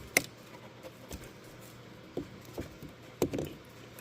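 A few sharp clicks and knocks of hands working the plastic quick-connect fittings on a radiator hose. The loudest comes just after the start, with smaller ones about two seconds in and a cluster about three seconds in.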